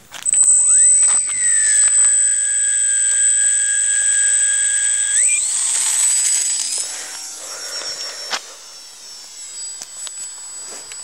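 Electric motor and propeller of a Durafly Micro Tundra RC plane whining up as the throttle opens. It holds a loud, steady high whine through the takeoff roll and steps higher in pitch about five seconds in. From about seven seconds in it fades and wavers in pitch as the plane climbs away.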